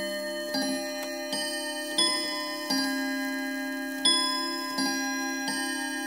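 Chiming clock playing its chime tune: a string of struck notes at different pitches, one about every 0.7 seconds, each ringing on under the next. There is a short pause between two phrases near the middle.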